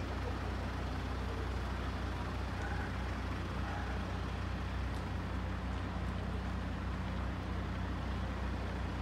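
A vehicle engine idling with a steady low rumble, over outdoor street noise.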